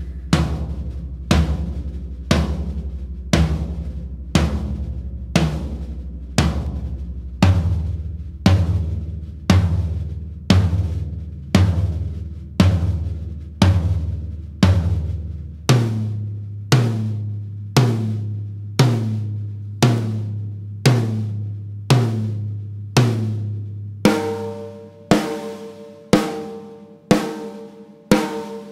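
Drums of a Unix stave bubinga kit struck one at a time, about once a second, each left to ring out so its tone is heard. The pitch steps up from the deepest drum to higher ones every several seconds, and about three-quarters of the way through a much higher, ringing drum takes over.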